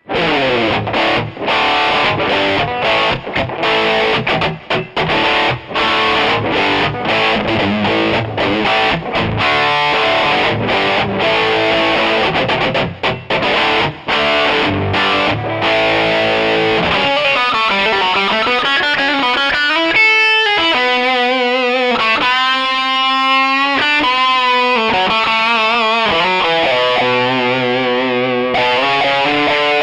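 Electric guitar played through a Takky Drive 2 Extreme drive pedal with heavy distortion. The first half is fast riffing broken by short stops; the second half is sustained lead notes with wide vibrato.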